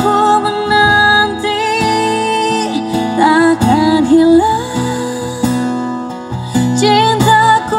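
A ballad played on a car's two-way audio system: a singer's voice gliding over plucked acoustic guitar.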